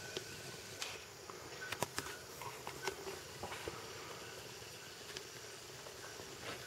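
Faint forest ambience with a few sharp, scattered clicks and a couple of brief faint calls in the first half.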